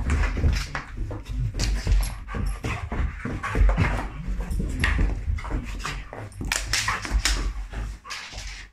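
A freshly bathed Rottweiler rolling, twisting and rubbing itself on a rug, making irregular scuffing and thumping sounds and dog noises.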